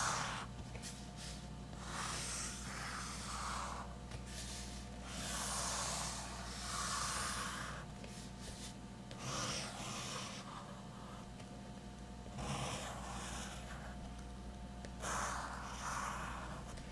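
Graphite pencil scratching across sketchbook paper in a series of curved strokes, each swelling and fading over about a second, as ovals are drawn freehand.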